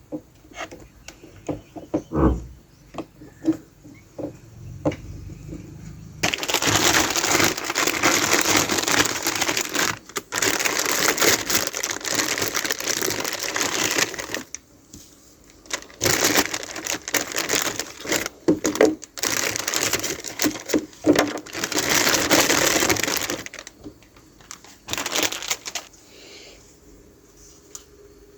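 Plastic toy packaging handled: scattered clicks and taps at first, then two long stretches of crinkling and rustling.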